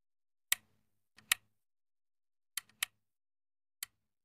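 Computer mouse clicks: about seven sharp clicks with silence between them, some coming in quick pairs.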